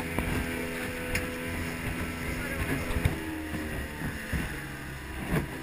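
Small open fishing boat under way at speed: its outboard motor runs steadily under the rush of wind on the microphone and water spraying past the hull.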